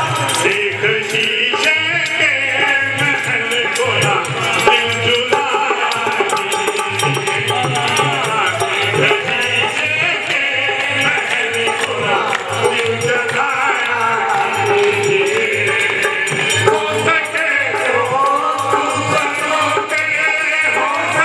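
Devotional song: a man sings the lead into a microphone, with other voices joining in and a shaken, rattling hand percussion keeping the beat.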